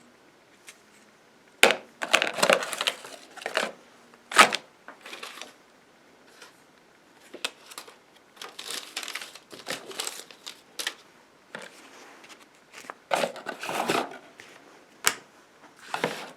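Irregular crinkling and crunching from material being handled close to the microphone, in uneven bursts with a few sharp clicks.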